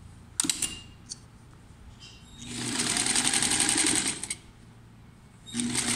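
Electric single-needle sewing machine stitching through layered fabric in two short runs with a pause between them, preceded by a couple of sharp clicks about half a second in.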